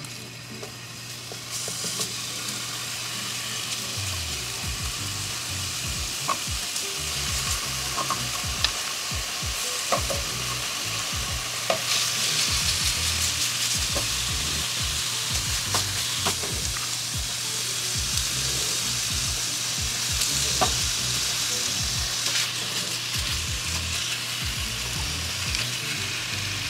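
Raw chicken breast strips sizzling in olive oil in a hot nonstick frying pan as they are laid in one after another with tongs, with frequent light clicks of the tongs against the pan. The sizzle starts about a second and a half in and thickens as the pan fills.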